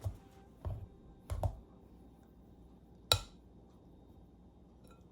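A utensil knocking against a bowl while mashed potato is mixed: four short knocks, the one about three seconds in a sharper clink.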